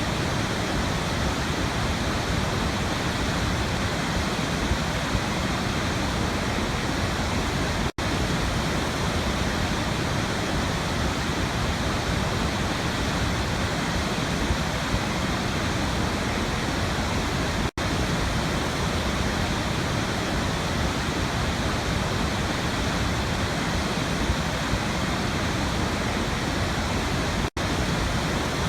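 Waterfall: water falling in a steady, even rush, cut off for a split second three times, about every ten seconds.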